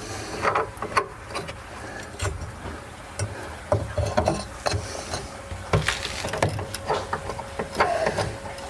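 Irregular clicks, knocks and scrapes of a steel pry bar on the concrete floor and of hands turning a cabinet's plastic leveling feet, as the cabinet is levelled.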